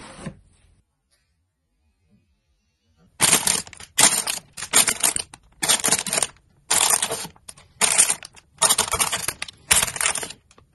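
Clear plastic bags holding a model kit's runners crinkling and crackling as they are handled, in a quick series of about nine short bursts starting about three seconds in.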